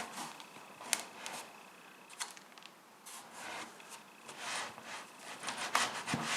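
Plywood board being worked into a freshly routed dado: scattered wooden knocks and clicks with soft scraping between them. The joint is too tight for the board.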